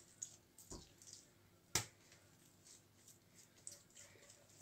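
Soft, quiet pats and squeezes of hands rounding balls of pizza dough and setting them on a countertop, with a sharp tap about a second and three-quarters in.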